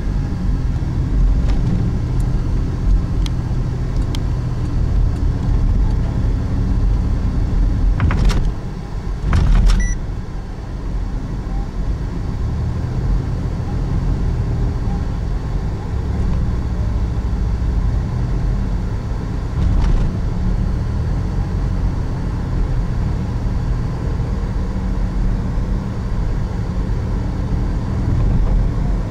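Road and engine noise inside a moving car's cabin: a steady low rumble. About eight and nine and a half seconds in come two sharp knocks, the car hitting bumps in the road.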